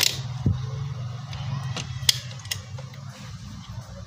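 Sharp plastic clicks and taps as an LED headlight bulb and its rubber seal are pushed into a motorcycle's plastic headlight housing by hand, over a steady low hum.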